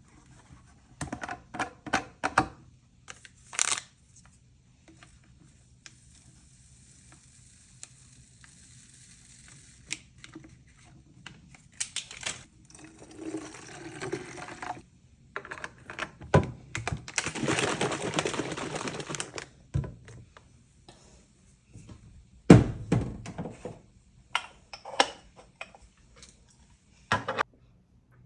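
A drink being mixed by hand: clicks and knocks of a container being handled, a steady faint high hiss, and rushing stretches of liquid being poured or stirred, with one loud knock near the end.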